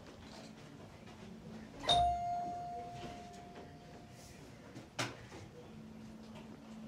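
A single bell-like ding about two seconds in: a sharp strike, then one clear tone that rings for a couple of seconds. A short sharp knock follows about five seconds in.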